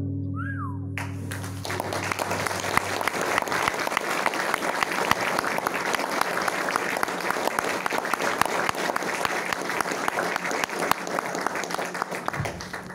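The final chord of an acoustic guitar rings and fades, and about a second in an audience breaks into sustained applause that dies down near the end.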